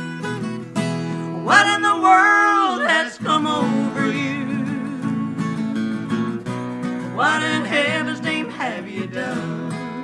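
Instrumental break of a country-folk song: acoustic guitar strummed steadily, with a melodic lead line that swells in about a second and a half in and again about seven seconds in.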